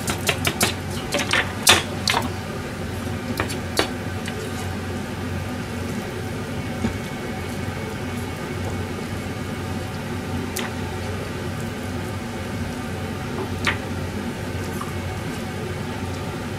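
Several sharp clicks and knocks of kitchen utensils and a tray being handled in the first few seconds, then a steady low hum with two more single light knocks later on.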